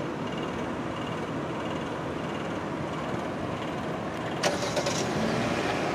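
Steady running of vehicle engines and traffic. About four and a half seconds in comes a brief sharp clatter with a faint tone, then a few lighter clicks.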